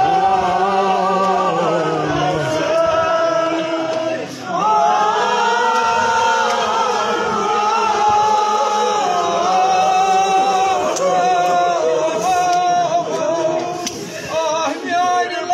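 A group of voices chanting a marsiya, a Shia elegy, together and unaccompanied, on long held notes. The singing breaks briefly for breath about four seconds in.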